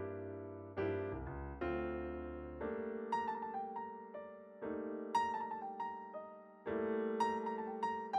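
Background piano music: struck chords that ring and fade, with single higher melody notes over them.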